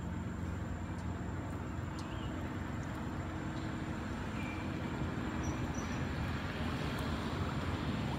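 Steady low rumble of vehicle engines running nearby, with a few faint short high chirps over it.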